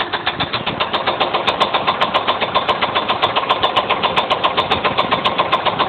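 A 2000 GM cube van's 5.7-litre V8 running with a fast, even knock of about eight strokes a second. The owner suspects rod knock or something in the valve train, which appeared just after the head gaskets were replaced.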